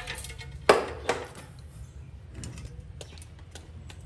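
A few sharp knocks and clicks of hand work on a wall socket: a loud knock about 0.7 s in, another soon after, then lighter ticks.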